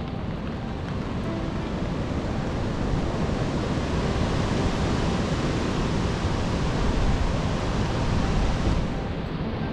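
Storm-force wind gusting over the microphone: a heavy rushing noise that builds for several seconds and then drops away sharply about nine seconds in.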